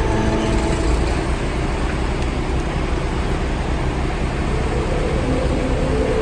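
Steady low rumble of motor vehicles, with a faint engine hum running through it.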